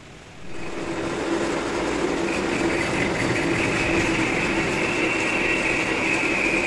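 Metal lathe running, its chuck spinning a heavy truck's rear axle housing. The noise comes in sharply about half a second in, then holds steady as a hum with a higher-pitched whine joining about two seconds in.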